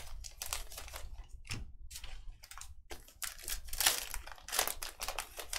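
Irregular rustling and crinkling of baseball card packs and cards being handled and opened.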